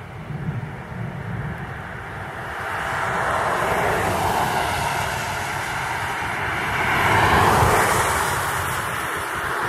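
Highway traffic: passing cars' tyre and engine noise swelling from about a third of the way in, loudest a little before the end.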